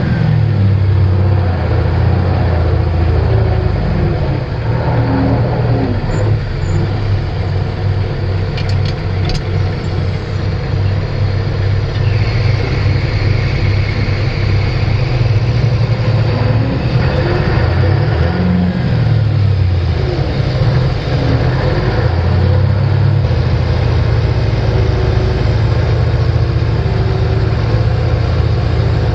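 Diesel engine of a 10-wheeler truck running, its pitch rising and falling a few times as the engine speed changes.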